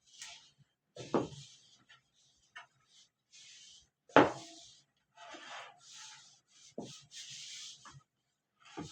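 Kitchen handling: short dry rubbing and scraping sounds, with two sharp knocks, the louder one about four seconds in.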